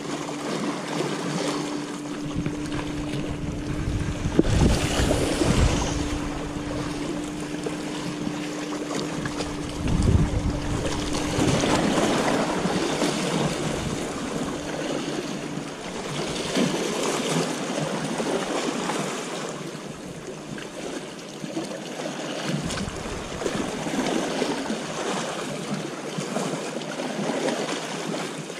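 Sea waves washing against the boulders of a rock breakwater, with wind gusting on the microphone. A steady low hum runs underneath for the first half and stops about fifteen seconds in.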